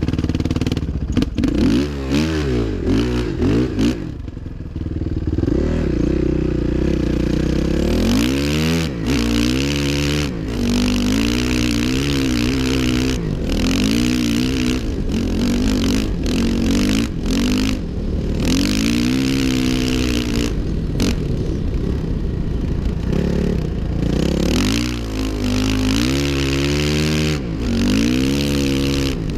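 2005 Suzuki RM-Z 450's single-cylinder four-stroke engine, ridden hard, revving up and dropping back over and over as the throttle is worked, heard from a helmet camera.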